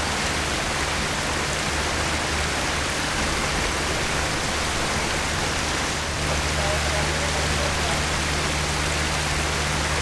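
Steady rushing of running water, with a low steady hum underneath and faint voices in the distance.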